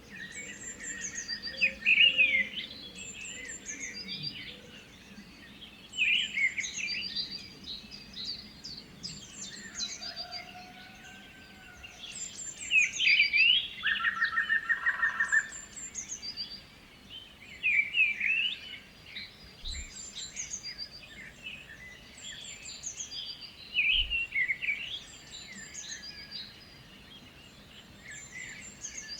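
Several songbirds singing and calling over one another, with many short chirps and whistles and a rapid trill about halfway through.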